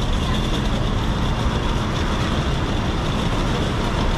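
Steady city background noise: a continuous low rumble of street traffic.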